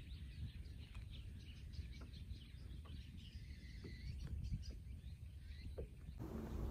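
Faint lakeside ambience: small birds chirping here and there over a steady low rumble. The sound changes abruptly to a steady hiss about six seconds in.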